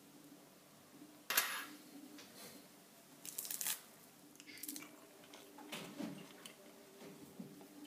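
Faint kitchen handling noises: a few short scrapes and knocks, the first and loudest about a second in and another cluster about three seconds in, over a low steady hum.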